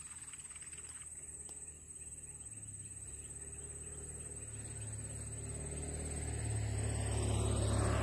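Engine hum of a passing motor vehicle, building steadily from a few seconds in and loudest near the end, its tone sweeping as it goes by. A steady high-pitched whine runs underneath.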